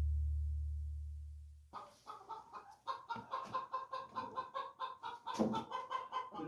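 A low ringing tone fades out and stops abruptly. Then, from about two seconds in, chickens cluck in rapid overlapping calls.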